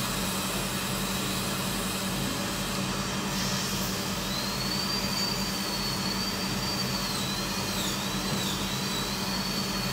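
A high-speed dental drill whining, its pitch wavering up and down from about four seconds in, over a steady hiss and low hum.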